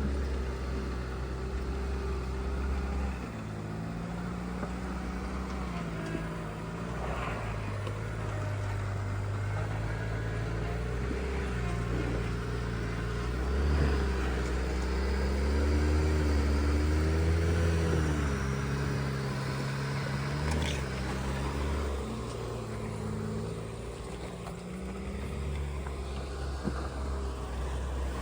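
Off-road truck engine revving up and down in short pulses of throttle while crawling over rocks, the engine note rising and falling repeatedly and loudest about halfway through.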